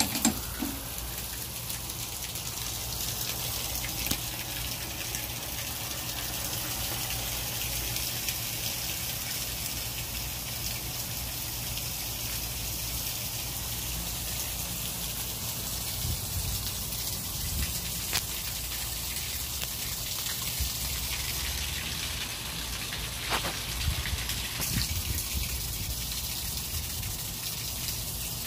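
Water gushing steadily out of an RV water heater's open drain as the tank is emptied, the stream splashing onto the ground below.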